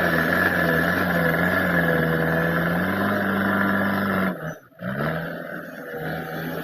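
JCB 3DX backhoe loader's diesel engine running steadily, its pitch stepping up slightly about three seconds in. A little past four seconds the sound cuts out abruptly for half a second, then the engine comes back quieter.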